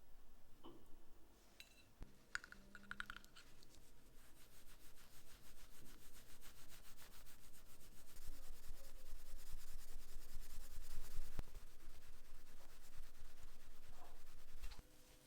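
Hand rubbing and scratching at the metal of an antique brass lighter during cleaning, growing louder after a few seconds and stopping suddenly near the end. A few short clicks come first.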